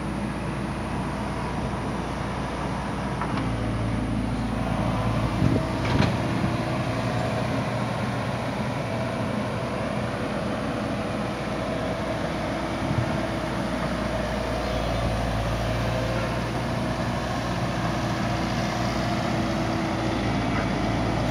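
Diesel engine of a JCB tracked excavator running steadily under hydraulic load as the machine swings and works its boom, the engine note rising about three seconds in and again past halfway. A few sharp knocks sound about five to six seconds in.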